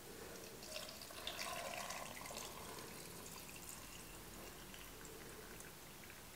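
Hot broth poured from a glass measuring cup into a quart mason jar: a faint, steady trickle of liquid, a little stronger between about one and two and a half seconds in.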